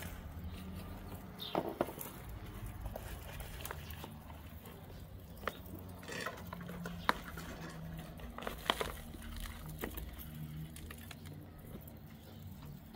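Plant stems and dry soil rustling and crackling as gloved hands pull tangled plants out of a plastic planter box, with scattered sharp clicks.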